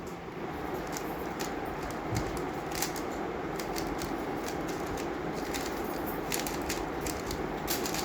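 A 3x3 speedcube being turned at high speed during a timed solve: rapid, irregular clicking and clacking of the layers, over a steady background hum.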